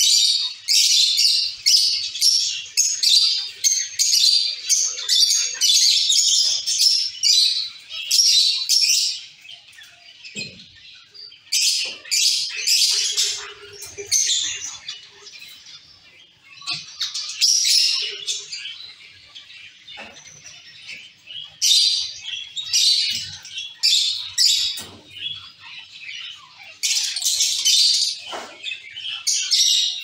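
A colony of zebra finches calling: many short, rapid chirps overlapping one another, dense for the first ten seconds or so, then coming in bursts with brief lulls between.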